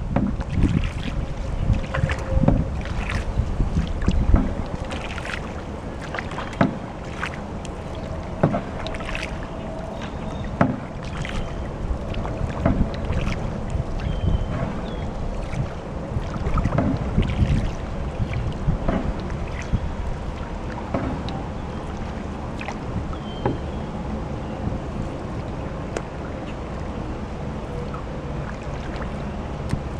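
A canoe being paddled: irregular paddle strokes splashing and dripping, with occasional knocks against the hull, over a low wind rumble on the microphone.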